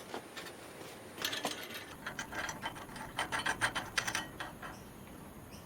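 A quick run of small metallic clicks and ticks, several to the second for about three seconds, from hands working the burner's threaded gas jet fitting.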